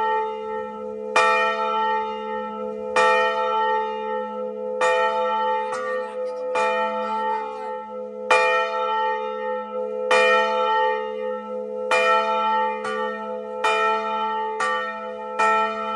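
A church tower bell ringing, struck about every two seconds and then, from about twelve seconds in, about once a second. Each stroke gives the same set of ringing tones, and its low hum sounds on without a break between strokes.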